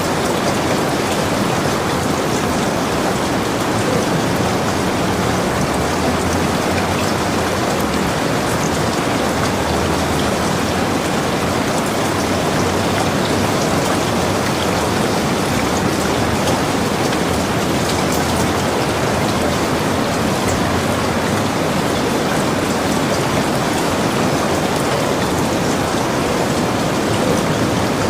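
Steady rain falling, with individual drops ticking on a surface through the even hiss.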